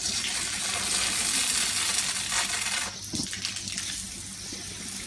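Water from a hose pipe spraying onto a bicycle to rinse off its soap: a steady hiss and splatter, louder for about three seconds, then dropping and going on more softly.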